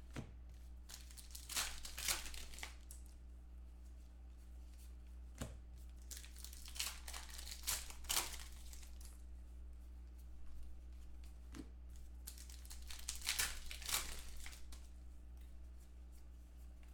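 Foil trading-card pack wrappers being torn open and crinkled in irregular bursts of rustling and crackling, with cards handled between them.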